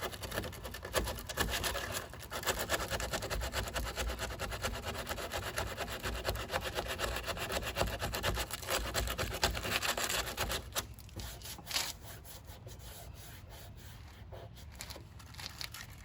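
Sandpaper scraping rapidly over cured body filler on a car body panel, knocking down the build-up over filled rivet holes. The sanding stops about ten seconds in, leaving only light, scattered handling noises.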